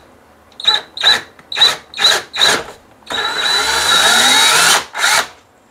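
Power drill drilling a hole for a wire: five quick trigger blips, then a steady run of nearly two seconds with the motor pitch rising, and one last short blip near the end.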